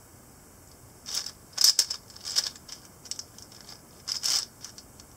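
Stickerless 4x4 speed cube (Cyclone Boys G4) being handled and turned in the hands: sharp plastic clicks and clacks, scattered irregularly, starting about a second in.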